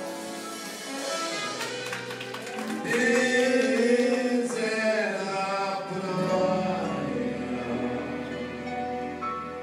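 Live Brazilian popular song (MPB): singing over a band of piano, guitars, upright bass and percussion, heard from the audience seats of a theatre.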